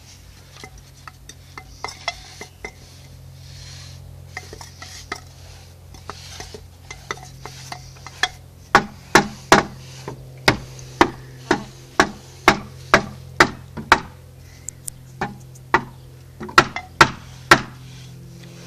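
A birch stick struck repeatedly against a wooden shed wall: light scattered taps at first, then, from about nine seconds in, sharp loud knocks about two a second, a short pause, and a few more near the end.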